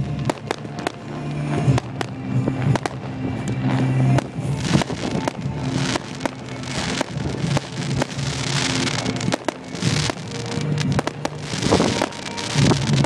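Aerial fireworks going off in a dense display: many sharp bangs and crackling bursts, some in quick runs, with music playing underneath.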